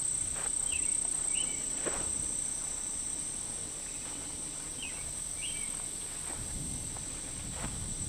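Steady, high-pitched chorus of insects trilling continuously at the lakeshore, with a few short chirping calls from animals about a second in and again around five seconds.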